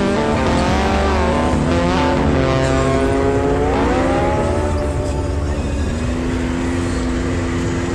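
Side-by-side UTV engine running under throttle on a dirt trail. Its pitch rises and falls a few times, then holds steady near the end.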